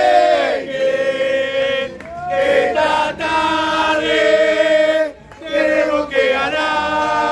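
A group of men singing an Argentine football terrace chant together, many voices in unison, loud, with a brief break about five seconds in.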